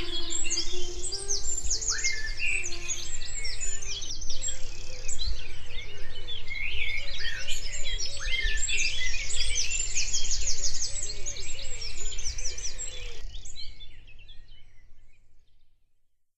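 Several birds singing and chirping at once, quick high chirps and trills overlapping, over a steady low hum. The sound fades out over the last few seconds.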